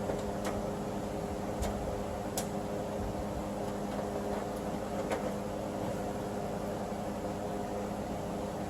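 A steady machine hum with several fixed pitches, with four light, sharp clicks of metal parts and fasteners being handled, the first about half a second in and the last about five seconds in.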